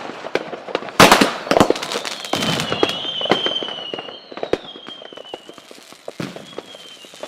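Fireworks going off: a loud bang about a second in, then scattered pops and crackles that die away. A high, wavering whistle runs under them from about two seconds in.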